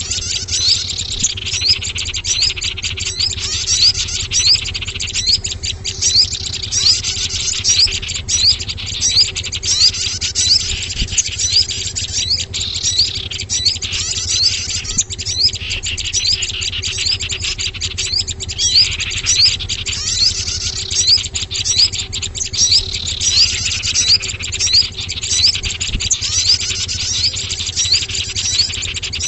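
Dense chorus of small songbirds chirping and twittering rapidly and without pause, a lure recording for calling in small birds, over a steady low hum.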